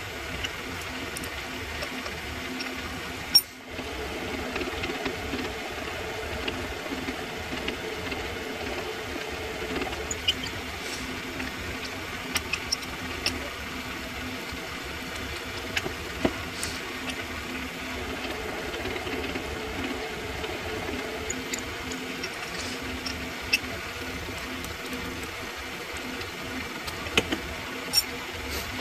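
Mini lathe running with a steady motor and gear hum while a drill bit in the tailstock chuck drills into the spinning workpiece, with scattered light clicks and one sharp click about three seconds in.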